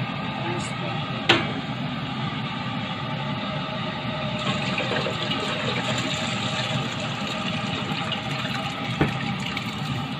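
Soup stock poured from a frying pan into a steel pot, a steady splashing pour that grows a little louder midway. A sharp clink about a second in and a light knock near the end.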